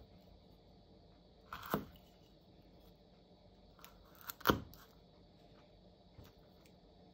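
Garlic cloves being peeled and trimmed with a kitchen knife on a wooden cutting board: a few quiet crackles and taps, the loudest a sharp tap of the knife against the board about four and a half seconds in.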